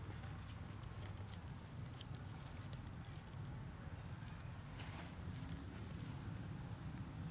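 Quiet outdoor ambience: a steady low rumble and a thin, steady high-pitched whine, with a few faint soft ticks and rustles.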